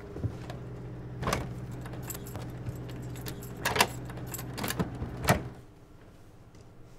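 An engine running with a steady low hum, with a few metallic jingling clinks, then it cuts off about five and a half seconds in.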